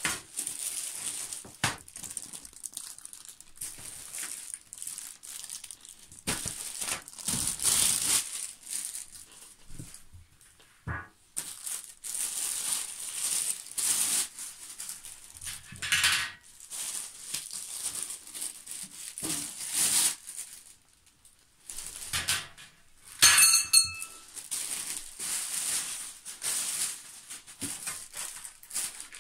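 Plastic wrapping crinkling and rustling in irregular bursts as it is pulled off flat-pack furniture parts, with a brief sharp squeak about two-thirds of the way through.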